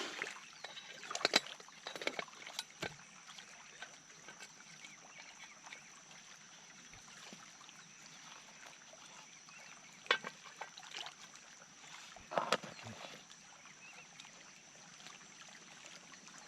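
Metal mess tin being handled: a few light knocks and scrapes, spread out with long faint gaps between them, over a steady thin high-pitched tone.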